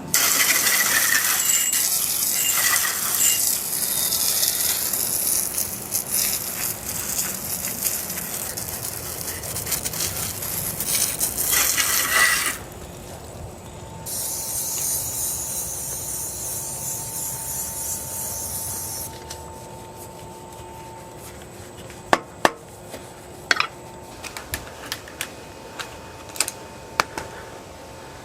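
Two long stretches of hissing spray, then a quieter stretch with scattered sharp mechanical clicks in the last few seconds.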